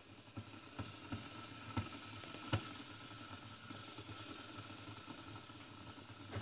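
Vintage 1970 Magefesa Electro Cafetera Express espresso machine switched on and heating: a low steady hum, with a few sharp clicks in the first few seconds, the loudest about two and a half seconds in.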